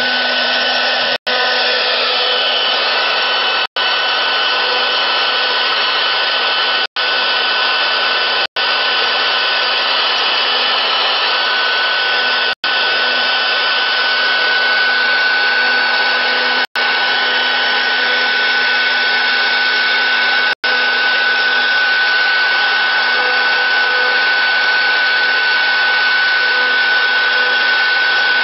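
CNC router spindle running and milling a pocket into a block of wood: a steady motor whine over cutting noise, with a high whine growing stronger partway through. The sound drops out for an instant about seven times.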